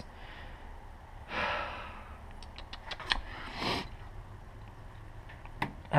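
A man's frustrated sigh about a second and a half in, then another breath a couple of seconds later, with a few small clicks of hands handling parts in the engine bay.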